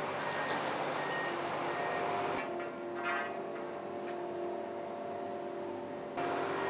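Steady machinery drone of container cranes working cargo on a ship, with a low hum in it. Faint short beeps repeat in the first couple of seconds, and there is a brief metallic clatter about two and a half seconds in.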